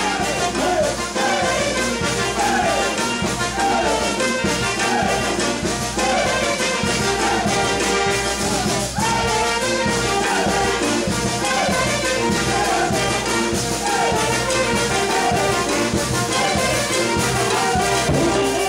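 Peruvian brass band playing live: trumpets, trombones, saxophones and sousaphone over bass drum and cymbal. The melody repeats a short phrase that falls in pitch, about once a second.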